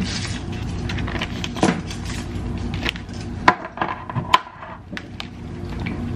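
Kitchen handling sounds: a plastic zipper bag rustling and crinkling while seasoning is shaken into it, with scattered light clicks and knocks from the spice container and counter.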